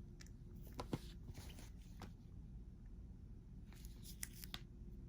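Faint handling noises: scattered small clicks and rustles in two clusters, about a second in and again about four seconds in, over a low steady hum.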